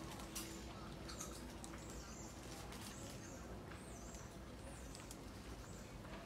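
Faint, short, high-pitched animal chirps, several in a row through the middle, over a steady low background hum, with one click about half a second in.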